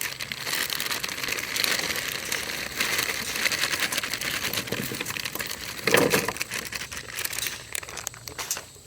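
Aluminium foil crinkling and rustling as it is handled and folded, with a louder crackle about six seconds in.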